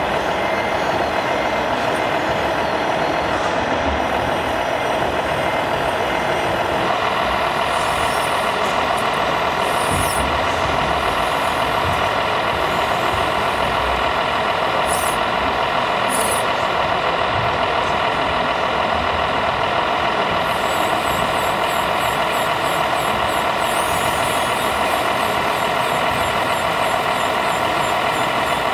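Steady sound of a running diesel truck engine from an RC scale fire truck, likely from its sound module, with a hissing edge. The tone shifts abruptly about seven seconds in.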